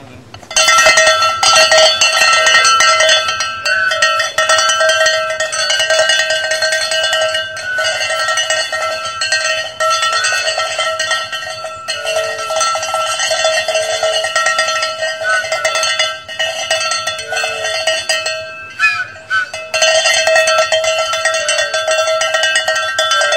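A noisemaker sounding loudly and continuously on one steady ringing pitch with a fast rattle, breaking off for about a second near the end.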